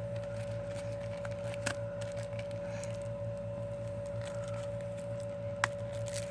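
Plastic CD packaging being handled: faint crinkles and rustles, with two sharp clicks, one under two seconds in and one near the end, over a steady electrical hum.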